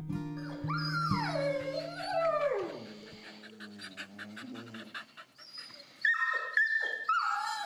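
A dog howls in one long call that slides down in pitch over background music, and the music fades after about three seconds. Near the end a dog whines in a few short, high-pitched cries.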